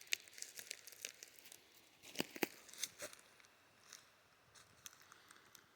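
Crinkling and rustling of gear being handled, irregular crackles with two sharper clicks a little over two seconds in.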